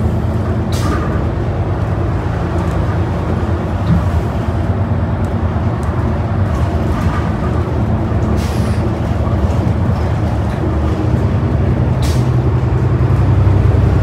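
Cummins L9 diesel engine and road noise of a New Flyer Xcelsior XD40 transit bus under way, heard inside the passenger cabin as a steady low hum. A few brief clicks and hisses sound over it, and the hum grows a little stronger near the end.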